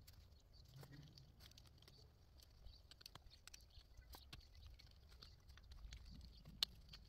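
Faint scattered clicks and rustles of hands handling electric fence wire and plastic insulators on a fence post, with one sharper click about six and a half seconds in.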